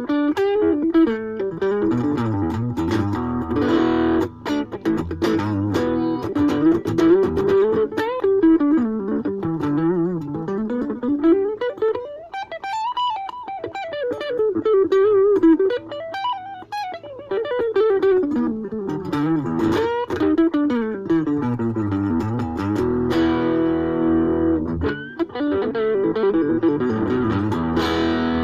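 Ibanez AXS42 electric guitar, rewired with single-core vintage wire, played through an amp in fast single-note runs that sweep up and down in pitch, with held chords near the end.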